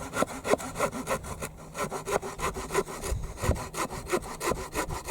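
Hand saw cutting through wood in quick, steady back-and-forth strokes.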